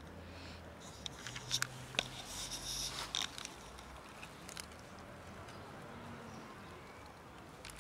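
A cat crunching dry kibble: a scatter of small, sharp crunches, thickest about two to three seconds in.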